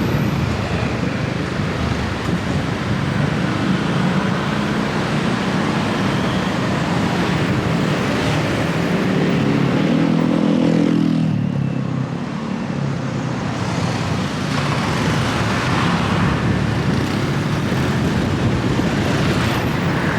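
Road traffic running steadily, with one vehicle's engine rising in pitch as it accelerates about eight to eleven seconds in.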